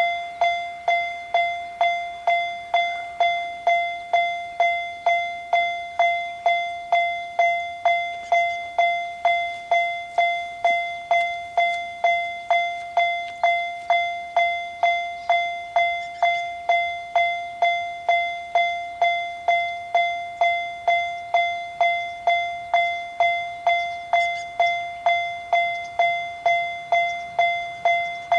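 Japanese railroad crossing alarm ringing its electronic 'kan-kan' bell tone steadily, about two strikes a second, each strike fading quickly. It is the warning that a train is approaching the crossing.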